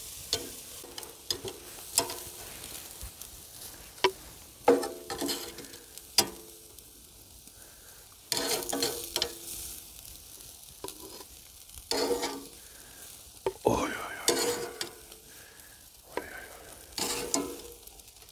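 Steaks sizzling on a small charcoal grill, with metal tongs clicking and clinking against the grill grate as the meat is lifted off, in many short bursts.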